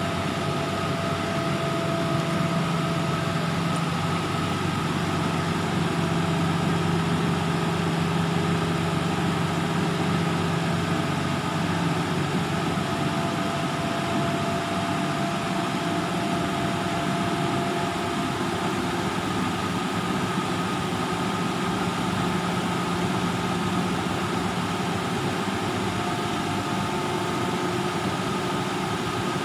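Truck-mounted Hup Soon telescopic boom lift running steadily: the truck's engine drives the hydraulics while the boom lowers the work basket, a constant hum with a few held tones that shift a little.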